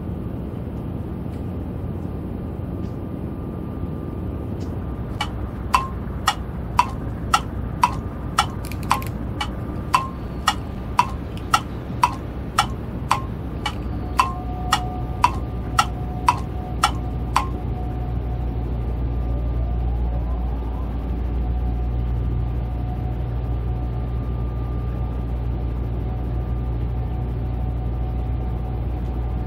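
Steady low rumble that grows louder about two-thirds of the way through, with a run of about twenty sharp, evenly spaced ticks, roughly two a second, in the first half.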